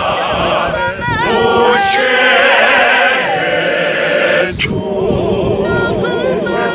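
Male group singing a cappella in harmony, an isiZulu praise-and-worship song, the voices held with wavering vibrato. A short pause between phrases comes about two-thirds of the way in.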